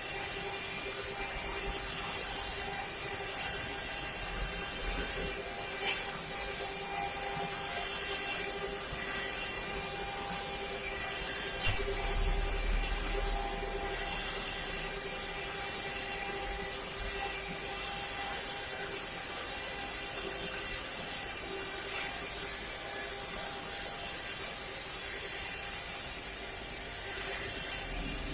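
Mini CNC carving machine running: its spindle gives a steady whine with a strong high hiss throughout, and a short low rumble rises about twelve seconds in.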